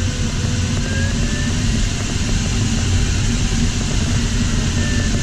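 Steady rush of airflow inside the cockpit of an LS4 sailplane in gliding flight, with a faint thin tone that wavers slowly in pitch.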